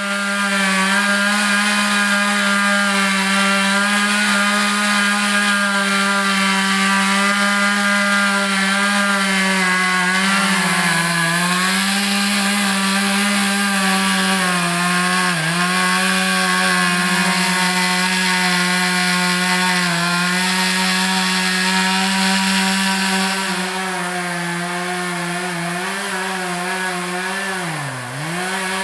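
Two-stroke chainsaw running near full throttle, cutting into a dead tree, its pitch dipping now and then as the chain loads in the wood. Near the end the engine drops sharply in pitch twice before picking back up.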